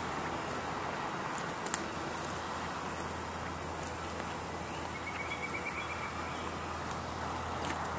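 Steady outdoor background noise with a low hum, a couple of faint clicks, and a short rapid high-pitched trill about five seconds in.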